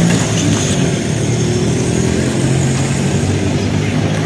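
Motor vehicle engine running steadily close by, with street noise.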